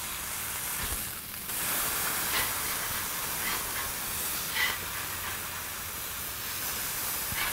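Smashed ground-chuck patties piled with thin-sliced onions sizzling steadily on a hot flat-top griddle, with a few short scrapes of a metal spatula as the burgers are flipped.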